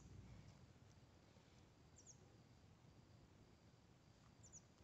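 Near silence: faint outdoor ambience with a small bird's high double chirps, about one pair every two seconds.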